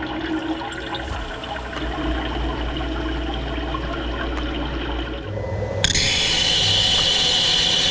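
Sodick wire EDM machine cutting, with its dielectric water flushing and splashing around the wire. About six seconds in, the sound changes to a steadier hiss with a thin high whine.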